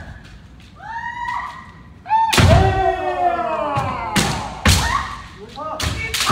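Kendo fencers' kiai shouts, with sharp strikes of bamboo shinai and stamping footfalls on a wooden floor. Short shouted cries come about a second in. A long falling shout then opens with a loud strike, and several more sharp hits follow.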